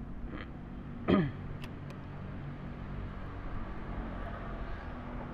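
A motor running steadily in the background with a low hum. About a second in comes one short, loud voice-like sound that falls in pitch, followed by a couple of faint clicks.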